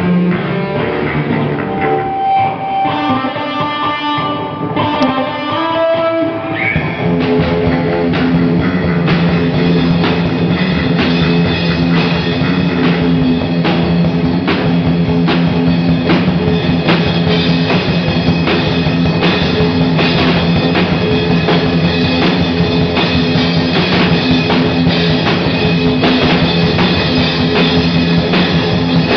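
Garage punk-rock band jamming live: electric guitars and a drum kit. The first six seconds or so are thinner, with single held guitar notes, then about seven seconds in the full band comes in with steady, driving drumming.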